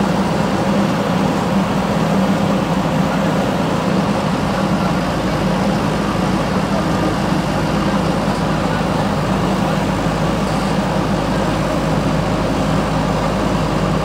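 JCB 3DX backhoe loader's diesel engine running steadily as the machine works its rear backhoe arm.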